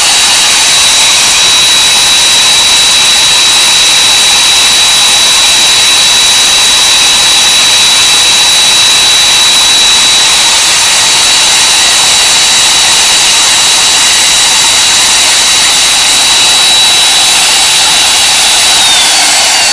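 Hougen HMD925 magnetic drill press motor running steadily with a high whine while it drills a hole under its automatic down feed. Near the end, the whine falls in pitch as the drill reaches the bottom of the hole and shuts itself off.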